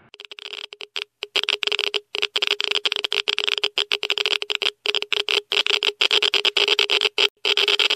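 Electronic glitch or static sound effect: a harsh hiss over a steady hum, stuttering on and off with many sudden, irregular cut-outs.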